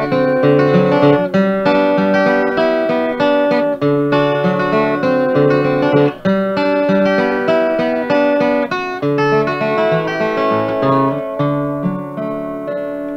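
Acoustic guitar picking a tune: a melody over alternating bass notes, with no singing. Near the end the playing stops and the last chord is left ringing and dying away.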